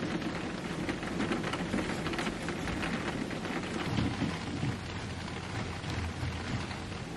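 Steady rain falling, with many small drop ticks, over a low rumble of thunder that swells about four seconds in and again near six seconds.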